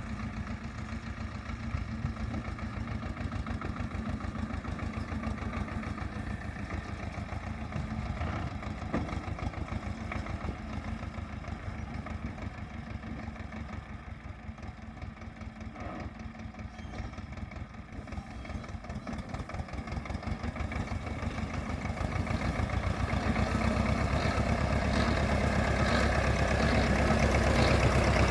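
URSUS C-335 tractor's two-cylinder diesel engine running steadily while pulling a rotary rake through clover. It dips a little partway through, then grows steadily louder over the last several seconds.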